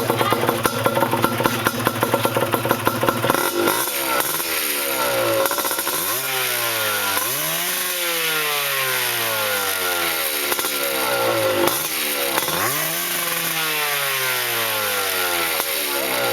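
Yamaha DT125's two-stroke single-cylinder engine idling steadily for about three seconds, then revved up and let fall back again and again, about five times.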